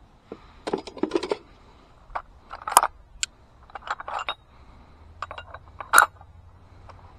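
Clicks and clatter of hand tools and small metal parts being handled, in several short clusters, with the sharpest knocks about three seconds in and again about six seconds in.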